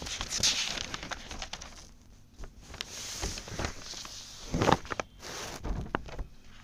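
Handling noise: irregular rustling and scraping with several sharp knocks and clicks, the loudest knock about four and a half seconds in.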